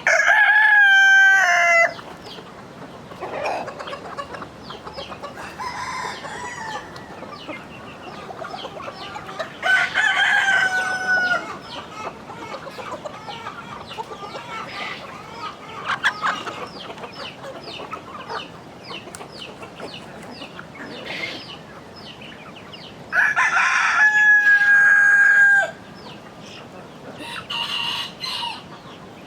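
Rooster crowing three times, each crow about two seconds long and roughly ten to fourteen seconds apart, over continual clucking of hens.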